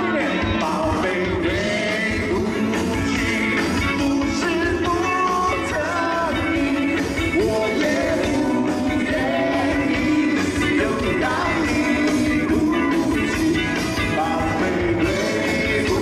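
A live rock band playing a song, with a lead singer's voice carrying the melody over the band.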